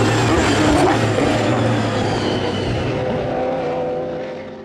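GT race car engines running at speed on the circuit, their pitch gliding as the cars change gears and pass. The sound fades out near the end.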